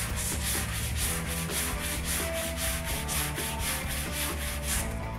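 Hand sanding: a roll of sandpaper rubbed back and forth over the primed sheet-metal of a 1967 Chevy C-10 pickup bed, cutting back the grey guide coat along an inside curve. Quick, even scratching strokes, about three a second.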